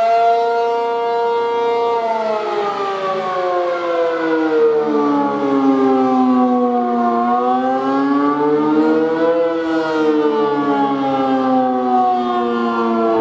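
ACA P-50 outdoor warning siren sounding the attack signal, a loud wavering wail. Its pitch holds high, slides slowly down, climbs again about two thirds of the way through, then slides back down.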